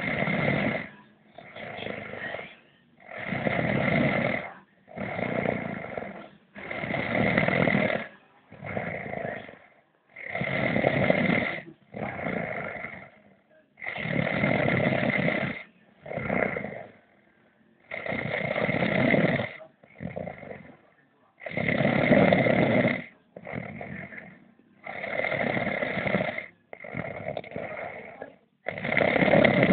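A sleeping man snoring steadily. Each loud snore lasts about a second and comes about every three and a half seconds, with a shorter, softer snore in between.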